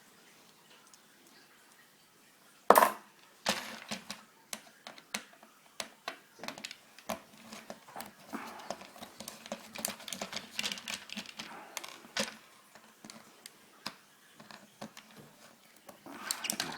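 Screwdriver and plastic telephone parts being handled on a table: a sharp knock about three seconds in, then a long run of irregular clicks, taps and scrapes as the screwdriver works at the casing screws, thinning out near the end.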